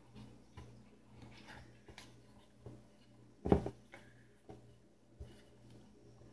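Pie crust dough being pressed and patched by hand into a metal pie tin: soft dough handling and small knocks, with one louder thump about three and a half seconds in.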